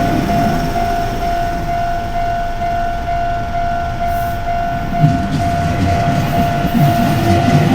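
Japanese railway level-crossing alarm ringing its repeated "kan-kan" tone without a break while a train runs through the crossing. The train's low rumble grows louder about five seconds in.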